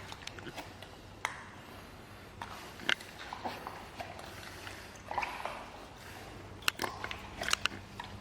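Rubber boots squishing in floodwater: scattered soft squelches and short clicks, a few every couple of seconds.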